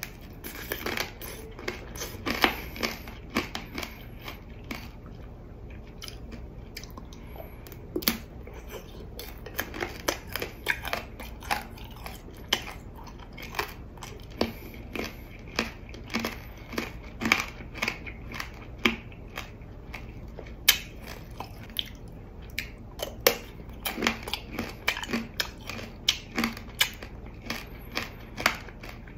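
Close-miked biting and chewing of tanghulu: the hard sugar shell on tangerine, cherry and green grape skewers cracks and crunches in sharp, irregular snaps.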